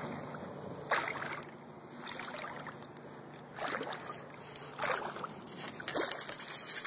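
Lake water splashing and lapping right at the microphone, with a few short splashes standing out over a steady wash.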